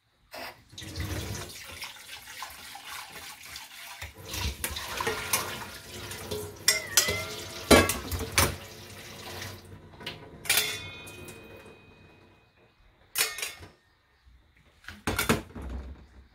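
Kitchen tap running into a stainless sink while food is rinsed in a metal mesh strainer over a pot, with metal clinks of strainer against pot. The water stops about twelve seconds in, and two sharp knocks follow near the end.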